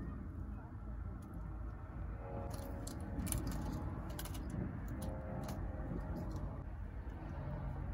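Light clicks and taps of roasted cherry tomatoes on the vine being picked out of an aluminium Omnia stovetop oven pan and set into a plastic food container, clustered in the middle of the stretch, over a steady low background rumble.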